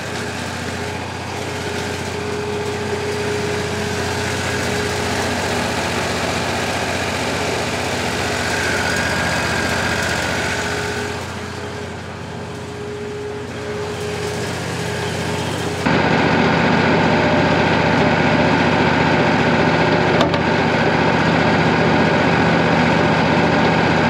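Wood-Mizer LT40 band sawmill running steadily with its band blade at the end of a poplar log. About 16 seconds in the sound jumps suddenly louder and fuller as the blade saws through the log.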